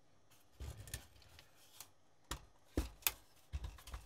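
Handling noise from a VEF 202 radio chassis being moved and lifted on a wooden workbench: a scatter of light knocks and clicks, the sharpest about three seconds in.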